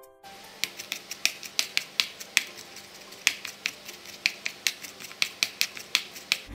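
A Steincookware Neo Blade stainless-steel knife tapping repeatedly on a plastic cutting board while mincing garlic and shallots: quick, uneven chopping taps at about three to four a second.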